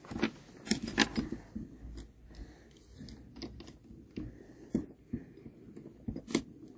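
Steel saw chain links clicking and rattling as a loose chain is worked by hand onto a chainsaw guide bar, in irregular short clicks.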